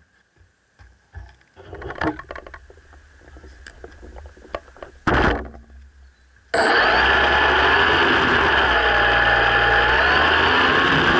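Clicks and knocks of the quadcopter being handled and set down, with one louder knock, then just past halfway its electric motors and propellers start abruptly and run steadily and loudly, the pitch wavering slightly.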